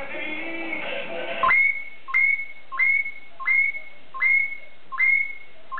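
A hill myna whistling the same note over and over, each one swooping up and held briefly, about three every two seconds. It opens with a short wavering, voice-like phrase.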